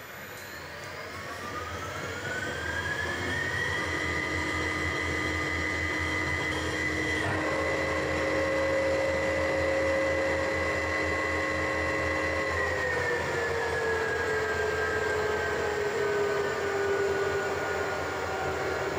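Harrison lathe's VFD-driven three-phase motor and drive train running up: a whine that rises in pitch over the first few seconds as the inverter ramps the speed, holds steady with a brief change in tone about seven seconds in, then slides slowly down from about two-thirds of the way through as the motor is ramped back down.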